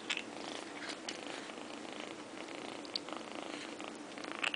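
A kitten making a steady purring noise while she eats, with small clicks of chewing over it; a sharp click about three seconds in and a louder one near the end.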